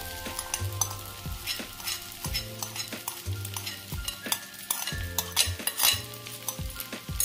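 Soaked sabudana (tapioca pearls) tipped from a glass bowl into a hot kadhai, sizzling and crackling, with many small sharp ticks as the pearls land.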